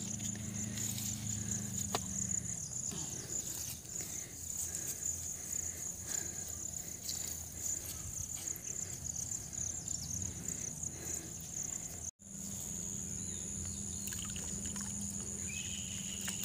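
Insects chirring in a steady, high, unbroken drone over faint outdoor background noise, with a brief gap about twelve seconds in.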